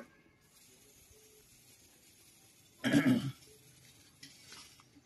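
A person coughing once, about three seconds in, over quiet room tone.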